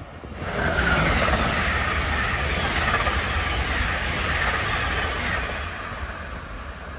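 Amtrak passenger train of Amfleet coaches passing at speed on the near track: loud, steady wheel-on-rail noise that comes in suddenly about half a second in and fades as the last car goes by.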